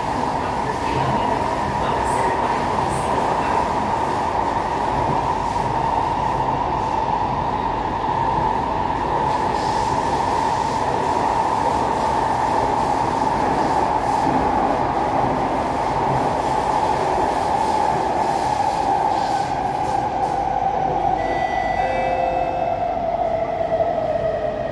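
Inside a moving C151A metro train car: the steady running noise of wheels on rail and the traction drive, with a prominent whine. Over the last few seconds the whine falls in pitch as the train begins to slow.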